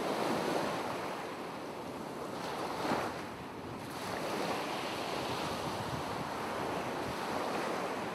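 Ocean waves washing as a steady surf sound, swelling briefly about three seconds in.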